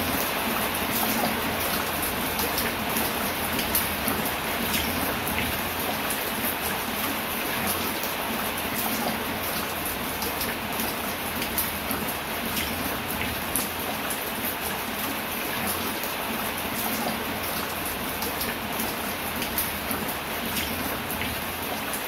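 Steady drizzle falling on leafy plants, with many scattered sharp drip ticks over an even patter.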